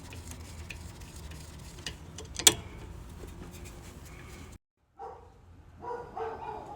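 Scattered light metallic clicks and clinks of hand tools and caliper hardware during a brake job, with one sharp click about two and a half seconds in, over a steady low hum. The sound cuts out abruptly just before five seconds and returns fainter.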